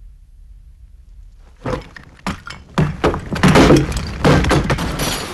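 Burning wreckage collapsing: a series of loud crashes and breaking sounds over a low rumble. The crashes start about a second and a half in, grow denser and louder, then cut off abruptly.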